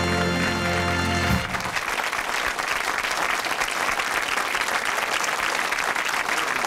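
A held musical chord that cuts off suddenly about a second and a half in, then a studio audience applauding steadily.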